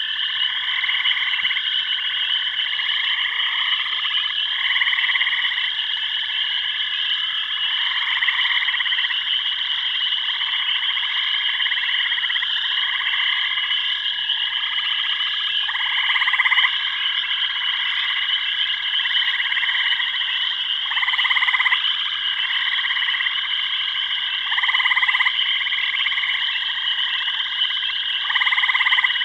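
Frog chorus: a dense, steady high trilling with louder croaking calls repeating every second or two over it.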